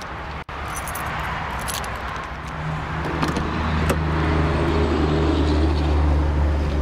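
A car door is opened with a few light clicks of the handle and latch, over a steady low engine hum that grows louder in the second half.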